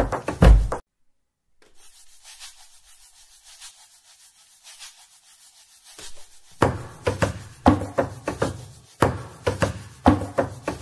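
Percussive background music with a steady beat cuts off under a second in. A few seconds of faint hiss follow, then the beat comes back.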